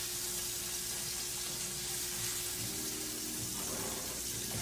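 Flour-dredged salmon pieces frying in oil in a skillet, a steady sizzle.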